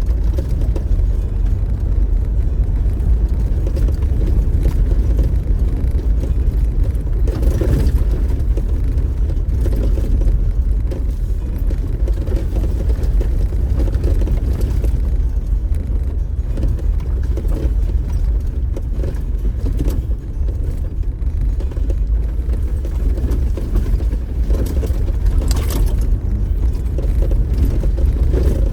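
Off-road vehicle driving over a rough, bumpy dirt trail: a steady low rumble of engine and tyres, with a knock or rattle from the bumps about seven seconds in and another near the end.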